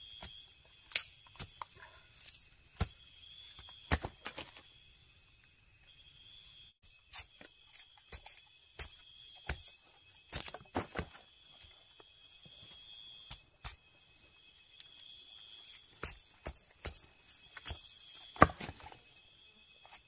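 Machete blade chopping at an upright wooden pole: irregular sharp knocks, the hardest about a second in, at four seconds, around ten seconds and near the end. Behind it a steady high trill of night insects that stops and starts every second or two.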